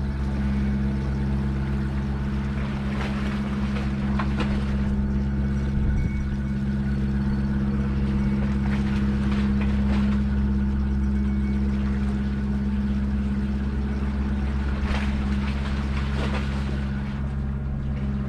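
Small fishing boat's engine running steadily, a low even hum with a few faint clicks over it.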